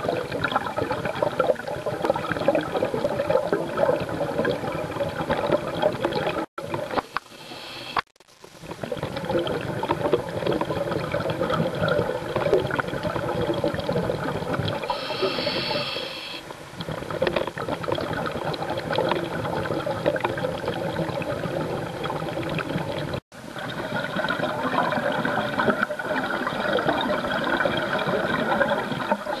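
Underwater bubble noise from scuba breathing: a steady gurgling and crackling of exhaled bubbles, with a short hiss of a breath through the regulator about halfway through. The sound cuts out briefly a few times.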